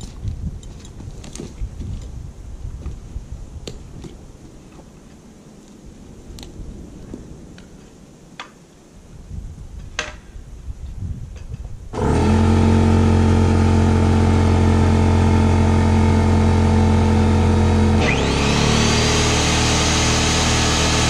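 A few light clicks and knocks, then about twelve seconds in a Skil circular saw starts abruptly and runs loud and steady, cutting off a wooden 4x4 post; about six seconds later its sound turns brighter and noisier as the blade works through the wood.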